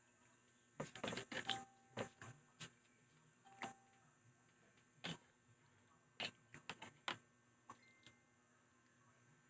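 Eating sounds: scattered sharp clicks and clinks on a plate, a few of them ringing briefly, in an otherwise quiet room.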